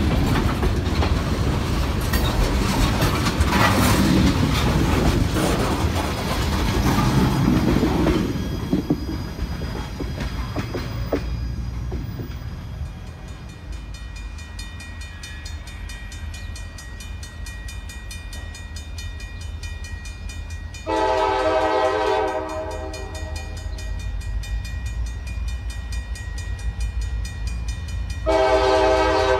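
A CSX freight train's tank cars roll past with their wheels clacking over the rail joints. After a quieter stretch, a diesel locomotive's air horn sounds two long blasts about seven seconds apart, as for a grade crossing. The second blast is still sounding at the end.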